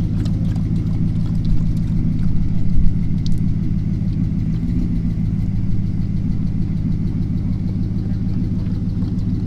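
Steady low hum of an engine idling.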